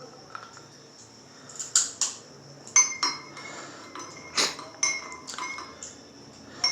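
A metal spoon clinking against cups of kahwa: several separate clinks at uneven spacing, a couple of them leaving a brief ringing tone.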